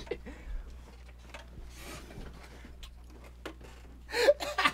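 Two men laughing almost silently, with faint breathy wheezes and soft rubbing and rustling, then loud short bursts of laughter near the end.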